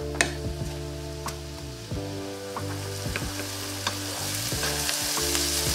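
Diced vegetables sautéing in melted butter in a frying pan over medium-high heat, sizzling steadily as a wooden spoon stirs them, with light scrapes and knocks of the spoon on the pan. The sizzle grows louder near the end.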